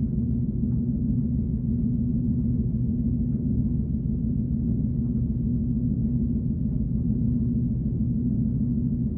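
Synthesized 'alien tone' sci-fi sound effect: a steady, low droning hum that holds without change.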